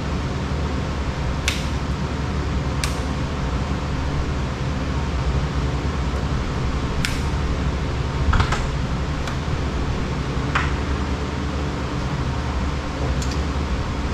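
Steady mechanical drone with several sharp metallic clicks scattered through it, from hand tools such as snips working on a scrap generator.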